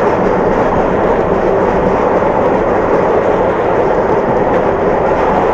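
RhB G4/5 narrow-gauge steam locomotive and its train on the move: a loud, steady rush of running noise with no distinct exhaust beats, in the live sound of a Super 8 film.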